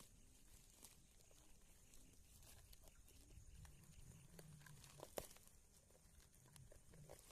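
Near silence with faint background noise and a few soft clicks, one a little sharper about five seconds in.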